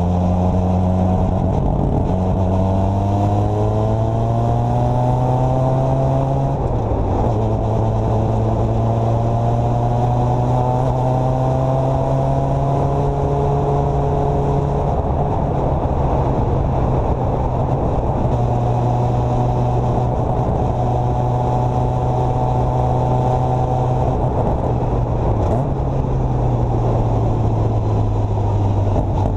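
Formula Mazda's 13B two-rotor rotary engine running hard on track. Its note climbs under acceleration, drops sharply at an upshift about seven seconds in, then rises more slowly. It dips briefly near the end before climbing again.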